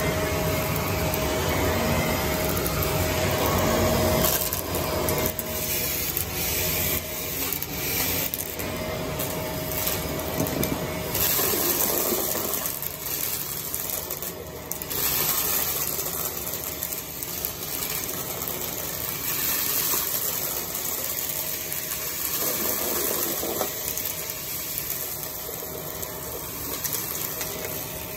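Upright vacuum cleaner running steadily while it sucks up a chunky mix of debris, with irregular clicks and crackles as pieces rattle through the machine.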